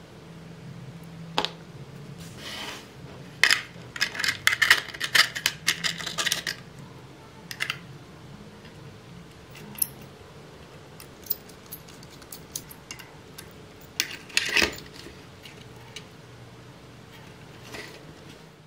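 Small hard clicks and clinks of a small screwdriver, tiny screws and metal tool against 3D-printed plastic parts during hand assembly, with a dense flurry of rapid clicks a few seconds in and another short cluster later.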